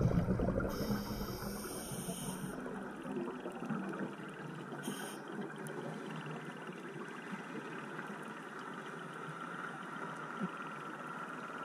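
Underwater ambient noise picked up through a camera housing: a steady muffled hiss and crackle, opening with a louder rush that eases off over the first few seconds.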